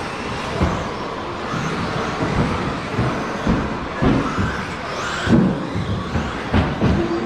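Electric RC cars running on an indoor carpet track, their motors whining up and down over tyre noise, with scattered knocks from the cars hitting the boards or each other. About five seconds in, a motor whine rises sharply.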